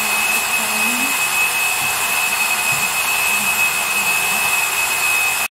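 Steady workshop machine noise: a loud hiss with a single high whine held throughout, cutting off abruptly near the end.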